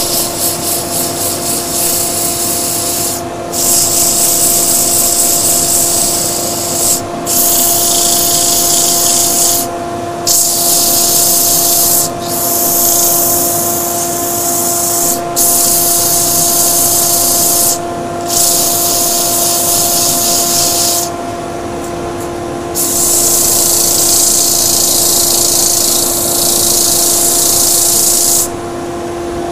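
Abrasive paper, 100 grit, sanding a boxwood bud vase spinning on a wood lathe: a hiss in about eight passes of a few seconds each, with short breaks, rapidly pulsing in the first few seconds. Under it runs the steady hum of the lathe and dust extractor.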